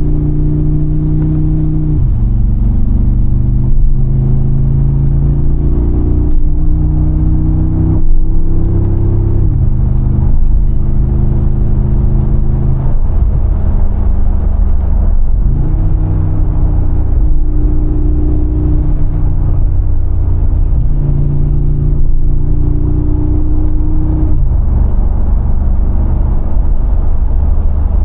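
Mercedes-AMG G63's 4.0-litre twin-turbo V8 under way, its pitch climbing steadily and then dropping sharply three times as the gearbox shifts up, with one sudden rise in pitch about halfway through.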